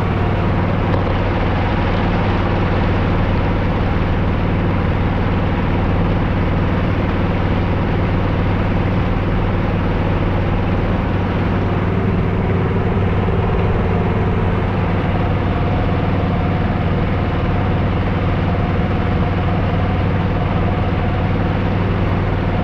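Boat engine running steadily at an even speed, a loud low hum that holds one pitch throughout.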